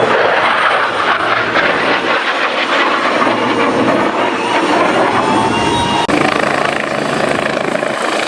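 Loud, steady rotor noise of a military rotorcraft in flight, with a brief break about six seconds in.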